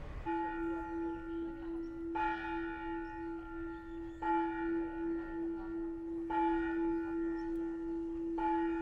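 A bell struck five times, about every two seconds, each strike ringing over a steady unbroken hum on one note; the sound starts and stops abruptly.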